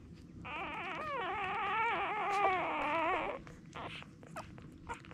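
A newborn Irish Setter puppy crying: one long, wavering, high-pitched cry lasting about three seconds, followed by a few faint short clicks.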